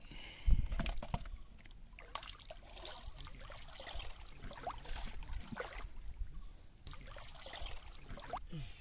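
Shallow water splashing and trickling as someone wades and handles the lines, with a single heavy thump about half a second in.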